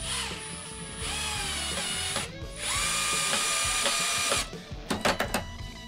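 Cordless Milwaukee drill driving a screw into a plastic toggle anchor set in a wooden stud, in two runs with a brief pause between, the motor whine rising as each run starts. A few sharp clicks follow near the end.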